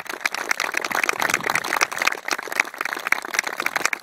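A small gathering applauding, with a few claps close by standing out sharply from the rest.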